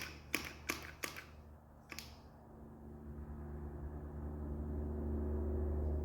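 A handful of sharp clicks in the first two seconds, then a low hum that slowly swells louder.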